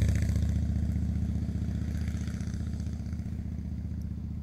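A motor vehicle's engine running with a low steady hum that fades gradually as it moves away.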